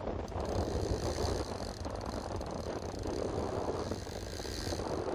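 Boat's outboard motor running steadily at trolling speed, mixed with wind and the wash of choppy water.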